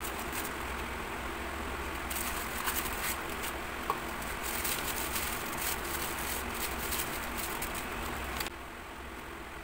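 Tissue paper crinkling and rustling in quick crackly bursts as it is unwrapped from a boxed shampoo bar, stopping shortly before the end, over a low steady hum.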